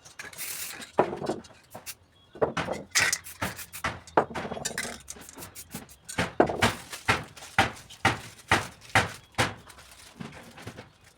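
Irregular knocks and taps from spray-paint cans and tools being handled, with a short hiss near the start. In the second half the knocks settle into about two a second.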